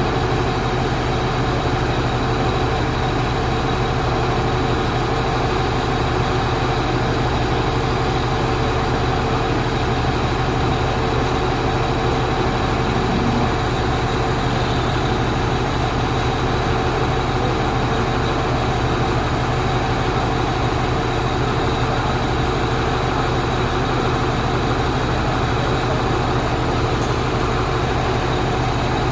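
Truck engine running steadily at an even speed, a constant low drone that does not change.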